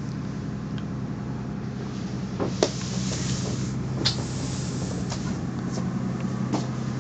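Steady low machine hum throughout. Over it come a few sharp clicks and knocks as a cabin door is handled and opened, the loudest about two and a half and four seconds in.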